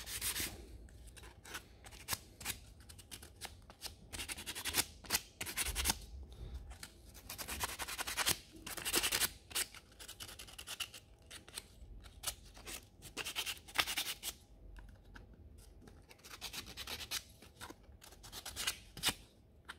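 Fine sandpaper rubbed by hand over the edges of a small wooden piece to take off splinters, in runs of quick back-and-forth strokes with short pauses between.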